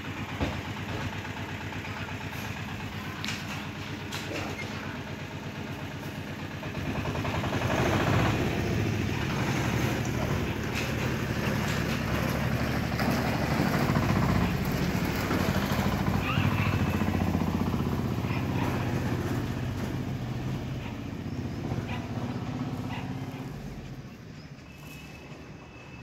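A motor engine running steadily, growing louder about seven seconds in and fading away again near the end.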